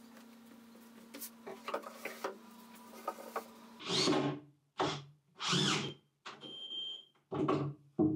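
A small handheld power tool runs in several short bursts of about half a second each, starting about four seconds in. Before that there is only a faint steady hum with a few light knocks.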